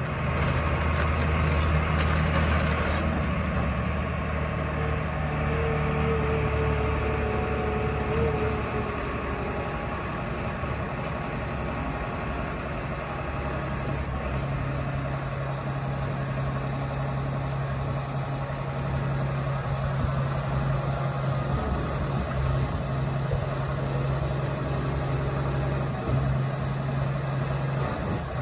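Diesel engine of a Cat 320E L tracked excavator running steadily as the boom and tiltrotator bucket are worked, with a brief higher whine about five to eight seconds in and shifts in the engine note around eight and thirteen seconds in.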